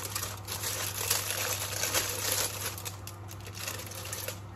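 Aluminium kitchen foil being peeled back from a baking tray, crinkling and crackling as it is handled.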